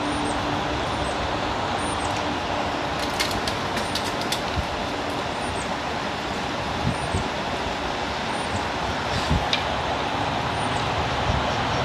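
Steady rushing of water flowing through a creek tailwater below a dam. A few light clicks sound about three to four seconds in, and faint high chirps recur about once a second.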